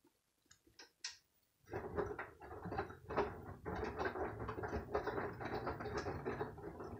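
LG washing machine in its drain and interim-spin stage: a few light clicks, then, about two seconds in, the drum starts turning the wet load with busy knocking and rustling over a steady hum and low rumble, as the machine balances the laundry before spinning.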